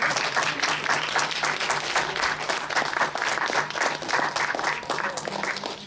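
A small audience applauding with steady hand claps after a poem is read. The clapping stops suddenly near the end.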